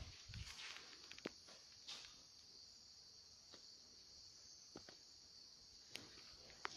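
Insects chirring steadily in a high, even drone, with a few faint clicks here and there.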